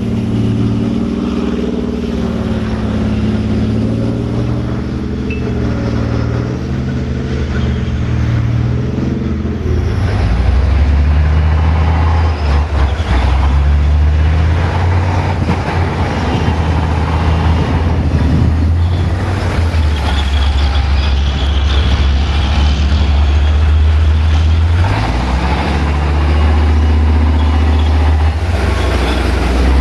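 Diesel engine of a heavy military vehicle running loudly. Its pitch wavers for the first ten seconds, then a deep, steady hum takes over, shifting once more near the end.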